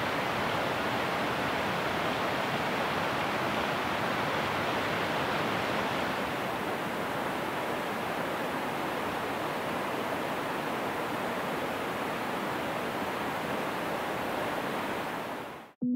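Steady rushing of running water, an even hiss with no distinct splashes, that fades out near the end.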